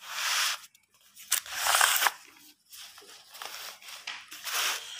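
Paper notebook pages being turned and smoothed down: papery rustling in three or four bursts, the loudest about a second and a half in.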